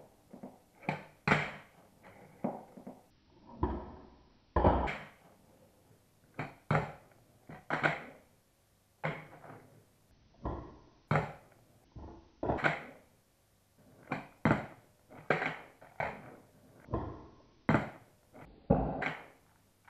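Handboard, a small skateboard ridden with the hands, popped and landed on a hard worktop and a wooden table: a string of sharp clacks from the deck and wheels hitting the surface, about one a second and at uneven spacing, some followed by a short roll.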